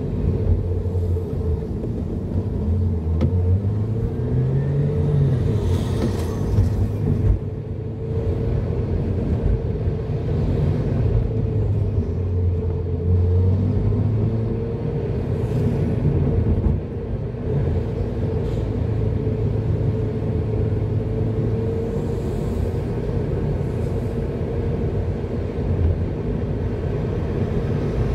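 A car's engine and tyre noise heard from inside the cabin while driving, a steady low hum whose pitch rises and falls a few times as the car speeds up and slows.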